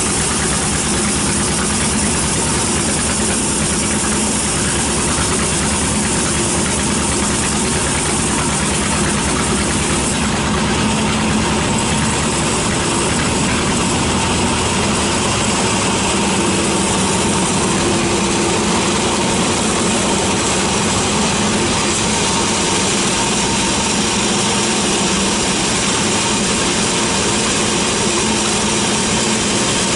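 Large band sawmill running steadily and ripping a teak log, a continuous mechanical drone of the motor and the band blade cutting through the wood.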